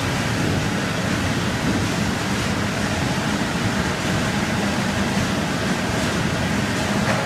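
Milestone seed potato cutter line running steadily, with its conveyor carrying cut seed pieces: a dense, even mechanical noise that holds level throughout.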